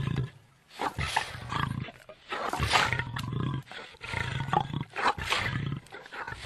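Sampled animal growls in a song intro: a run of rough, uneven bursts with short gaps between them and no beat under them.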